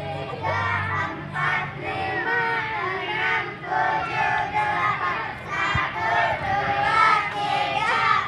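A crowd of children's voices, many talking and calling out at once.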